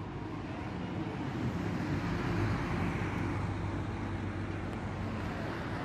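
Motor traffic: a low engine hum over a steady outdoor rumble, swelling about two seconds in and easing off again.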